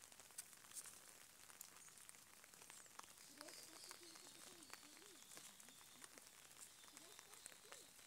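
Near silence: faint outdoor background hiss with small scattered crackles, and a faint wavering tone that comes and goes from about three seconds in and again near the end.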